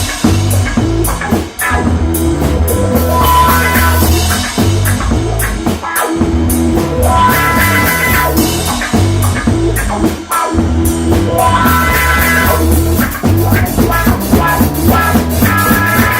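Funk-rock band playing an instrumental jam: guitar, bass and drum kit on a steady groove, with a brief stop in the groove about every four and a half seconds.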